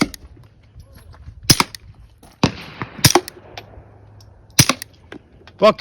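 Suppressed .22 pistol firing several sharp, fairly light shots at irregular intervals, some in quick pairs.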